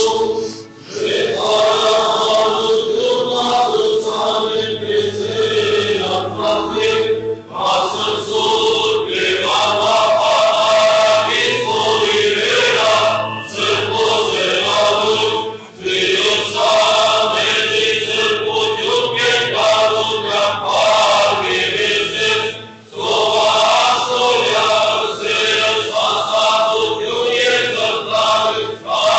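Church choir of mostly male voices singing an Armenian liturgical chant, in long phrases with brief breaks between them.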